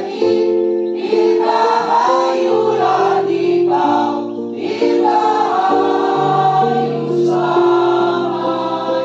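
A mixed choir of men and women singing a slow song in several parts, holding long notes that change together about once a second.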